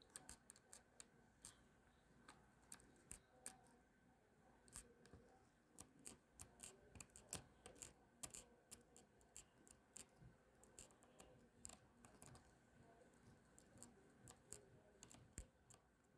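Faint, irregular small clicks and taps, several a second, from the parts of a ratcheting screwdriver's ratchet mechanism being handled and fitted back together.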